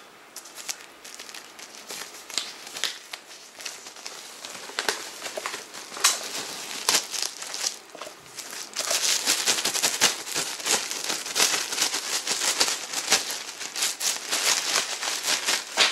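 Plastic wrapper being peeled off a large hardcover book and crumpled close to the microphone, a dense crackling and crinkling that grows louder and busier about halfway through.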